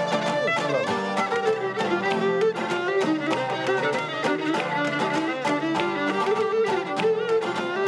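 Live Cretan folk dance music: a Cretan lyra playing a quick bowed melody over steady strummed laouto accompaniment.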